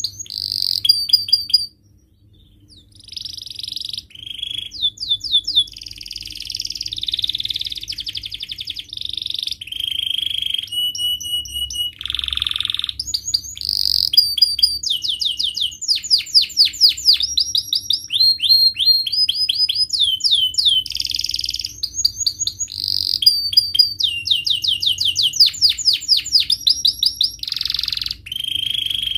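Domestic canary singing a long, varied song of rapid trills, fast repeated chirps and sweeping notes, with a short pause about two seconds in.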